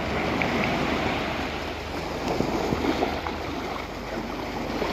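Small sea waves washing over a sandy shore and the shallows: a steady rushing wash with a few faint splashes.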